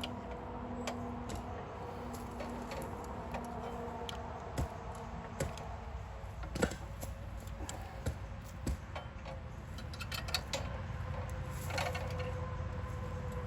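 Irregular light metallic clicks and taps from hand tools and hardware, a few seconds apart, as the shredder blade is fitted back with its bolt and nut.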